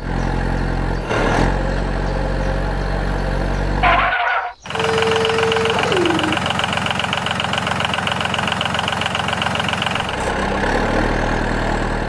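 Truck engine sound effect: a heavy engine running steadily, which cuts out about four seconds in. It then starts again with a brief whine that drops in pitch and settles into a rhythmic idle.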